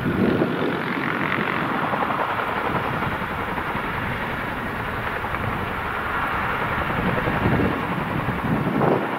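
Boeing CH-47 Chinook helicopter's tandem rotors and twin turboshaft engines at take-off power as it lifts off and climbs away: a steady, dense roar that swells a little now and then.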